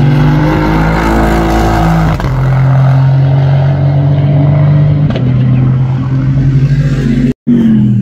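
Aston Martin Vantage race car's twin-turbo 4.0-litre V8 accelerating hard out of a slow corner, its note stepping down about two seconds in and again about five seconds in as it shifts up. Near the end the sound drops out for an instant and picks up again on another engine note.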